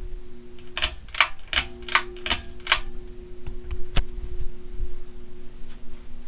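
Hunter Baseball Fan ceiling fan motor humming steadily, with a quick run of about six sharp clicks and rattles, like a pull-chain switch being worked, in the first few seconds, and one more crisp click about four seconds in. The hum drops out briefly during the first clicks, then comes back.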